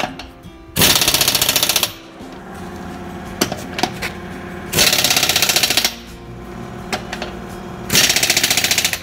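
Pneumatic impact wrench hammering on a truck's wheel nuts in three bursts of about a second each, tightening them one after another in a cross sequence.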